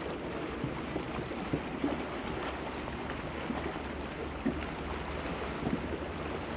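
Small boat on the lake: a steady low rumble with small, irregular water splashes against the hull.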